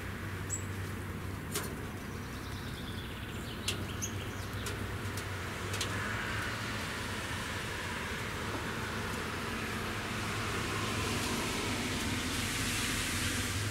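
Outdoor traffic ambience: a steady hiss of distant road traffic that swells over the last few seconds as a vehicle passes, with a few faint clicks and two short high chirps.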